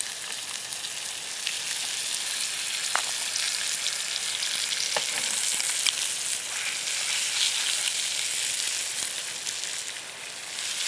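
Coated whole trout frying in olive oil in a pan on a portable camp stove: a steady sizzle with scattered crackles, briefly quieter near the end.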